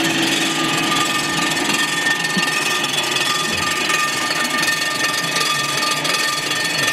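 Blockmaster 85B resurfacing machine's rotating cutter head milling the deck of a cast iron AMC 258 engine block on a light two-thousandths finishing pass at slowed feed: a steady cutting hiss with several constant whining tones.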